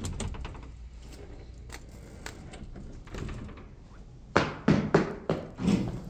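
A shop's glass entrance door pushed open, then footsteps across the entrance mat in boots, with a quick run of about five loud thumps near the end.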